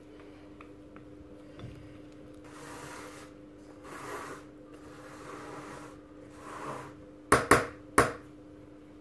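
Silicone spatula scraping and smoothing thick cake batter in a metal springform pan, several soft swishes in a row, then three sharp knocks near the end. A steady low hum runs underneath.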